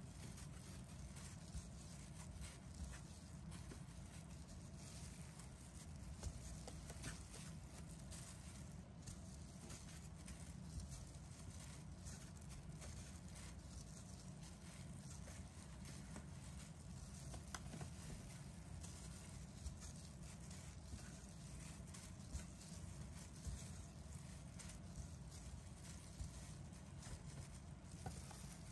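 Light, irregular taps of soft sugar-coated chiffon cake pieces being set down one by one on a metal baking tray, over a steady low hum.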